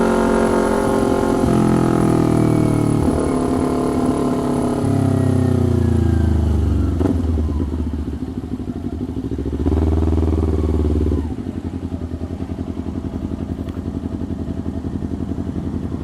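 Kawasaki Ninja 250 parallel-twin through a loud custom exhaust, slowing down with its engine pitch falling in steps. It gives a short rev about ten seconds in, then settles to a steady idle.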